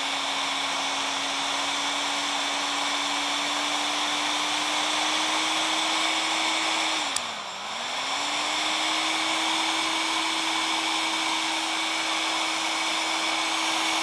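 Resanta FE-2000EKD heat gun running: a steady fan-motor whine over the rush of air. About seven seconds in there is a click, and the fan briefly slows, dropping in pitch, then speeds back up.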